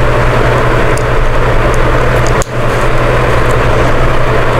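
Loud steady mechanical drone with a low hum under an even rushing noise, dipping out for an instant just past halfway.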